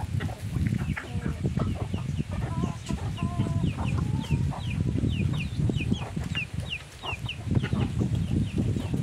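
Chickens clucking, with a quick run of short, high, falling peeps from about three seconds in, over a constant low rumble.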